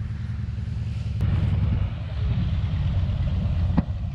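Single-engine biplane's engine running on the airfield, a steady low drone that grows louder about a second in. A single sharp click near the end.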